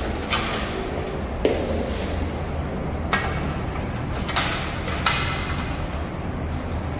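About five sharp clicks and knocks, irregularly spaced about a second apart, from hands working at an electrical distribution board and an aluminium ladder, over a steady low hum.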